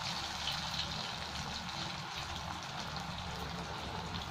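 Diamond-cut pieces of chana dal cake (dhoka) sizzling and crackling steadily as they deep-fry in hot oil in a kadai, with a low steady hum underneath.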